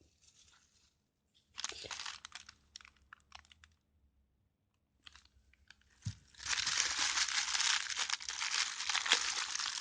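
Packaging crinkling and rustling as a part of the kit is handled and unwrapped: a short burst about a second and a half in, a few small rustles, a pause, then steady crinkling from about six and a half seconds on.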